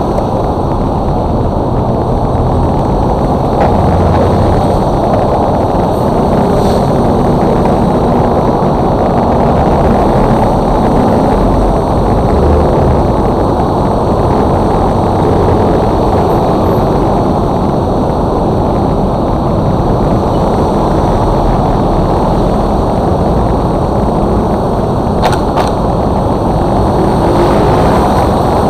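Steady, loud rumble of a motor scooter riding in traffic, picked up by a camera mounted on the bike: wind and engine noise blended into a low roar with no clear engine pitch.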